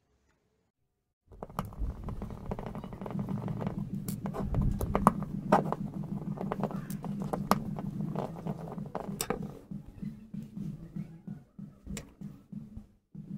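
Small clicks and scrapes of a screwdriver and metal parts as a Honda P50 carburetor is taken apart: screws undone and the float-bowl cover lifted off. Under them runs a steady low hum. Both start about a second in, after a short silence.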